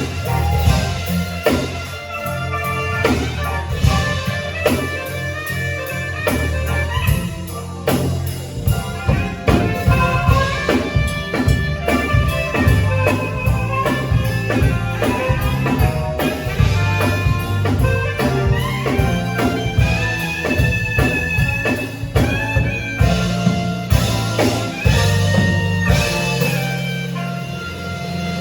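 Jazzy instrumental band music with a steady drum beat and melodic lead lines.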